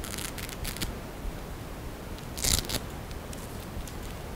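Velcro hook-and-loop fastener ripping apart as felt pieces are pulled off a glove puppet: a short rasping rip about halfway through, with fainter crackles near the start.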